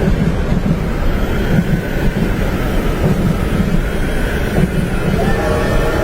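Steady low rumble of a train running on its tracks, heard from inside the carriage, mixed with wind noise. About five seconds in, faint steady whining tones join.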